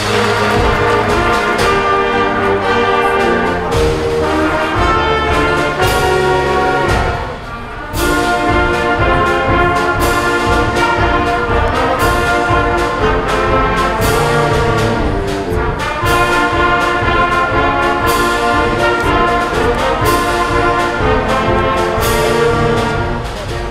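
High school concert band of brass, saxophones and bass drum playing a military service medley, with steady drum beats. The music briefly thins out about a third of the way in, then the next section comes in.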